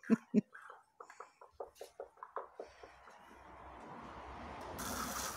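Water spraying from a garden hose wand aimed up at a porch's eaves. The hiss builds steadily, and a sharper, higher hiss starts suddenly near the end. A few faint knocks come before it.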